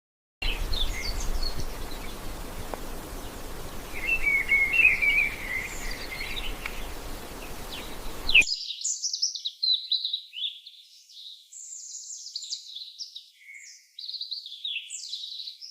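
Small birds chirping in quick, high calls over a steady background hiss. About eight seconds in, the hiss cuts off suddenly and a fast run of high, sweeping chirps carries on alone.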